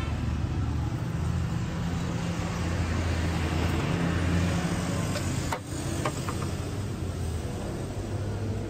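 Steady low rumble of street traffic and urban bustle, with a few light clinks a little over halfway through.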